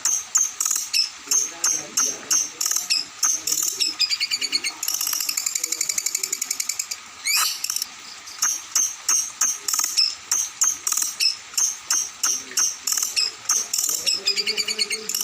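Songbird singing loudly: quick, high-pitched notes repeated about three times a second, broken by a dense buzzy trill about five seconds in, a sharp falling note near the middle, and another trill near the end.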